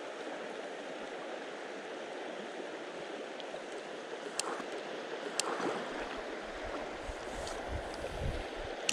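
River water rushing steadily over a shallow stony run. A couple of sharp clicks come around the middle, and low rumbling bumps come in the second half.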